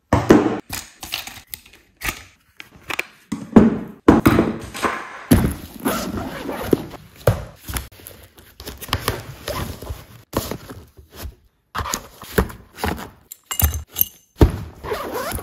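Camera gear being packed by hand into a padded camera backpack: irregular knocks and thunks as hard items such as a drone, its controller and a camera are set into the compartments, with handling and rubbing noise between them.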